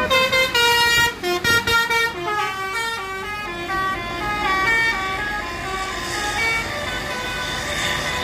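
Basuri V3 telolet musical horn on a tour bus, playing a tune. It opens with a string of short, loud staccato notes, then runs through a sequence of stepped melodic notes that grows fainter toward the end, over road noise.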